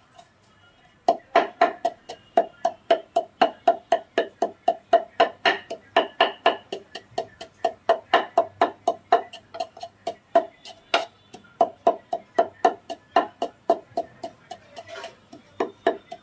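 Wooden pestle pounding in a wooden mortar, crushing naphthalene balls into fine powder: rapid, even knocks, about four to five a second, starting about a second in.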